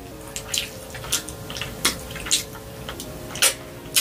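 Close-miked eating: wet chewing and lip-smacking, about ten sharp, irregular mouth clicks over the four seconds, with a faint steady hum underneath.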